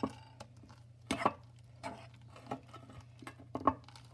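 A spoon stirring thick shaving-foam slime in a bowl, knocking and scraping against the bowl's sides in irregular strokes, the loudest just after a second in and near the end.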